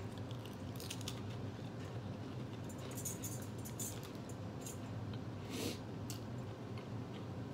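Close chewing and crunching of a saltine cracker, with scattered light clicks and clinks, over the steady low hum of a room air conditioner.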